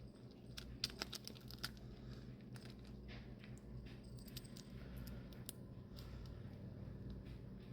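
Crawfish shells being cracked and peeled by hand: a run of sharp clicks and crackles, thickest about a second in and then scattered, over a steady low hum.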